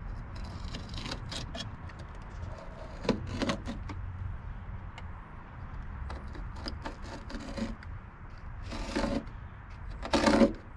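Utility knife cutting and scraping at van floor carpet that seems to be glued down, with small scratchy clicks and a few louder rasps; the loudest comes near the end.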